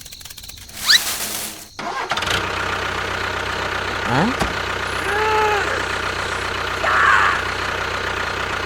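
An engine starts about two seconds in and then runs steadily, with a few short rising and falling tones over it. A brief rising whoosh comes just before.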